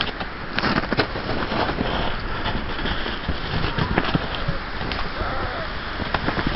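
Wind buffeting the microphone over the rough, crackling noise of a ride across snow, with many sharp clicks and knocks.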